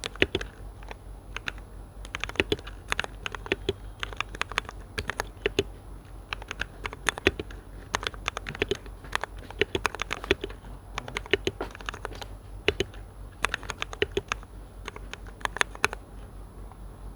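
Rapid, irregular clicks and taps in clusters, stopping near the end, over a faint steady high-pitched whine.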